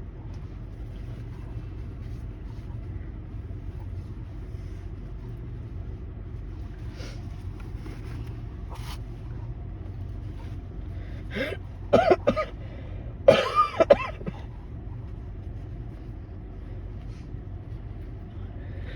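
A congested person sniffling, then giving two short bursts of catching breaths and a cough-like hitch about twelve and thirteen seconds in: a sneeze building up that does not come. A steady low hum runs underneath.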